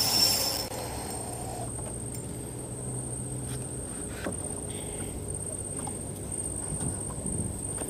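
Steady high-pitched insect trill over quiet riverside ambience, with a faint low hum that stops about four seconds in and a few small ticks of fishing tackle being handled.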